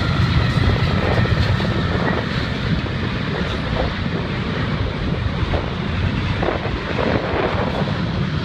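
Norfolk Southern freight train passing close by. The last diesel locomotive gives way to double-stack intermodal container cars, with a steady low rumble of wheels rolling on the rails.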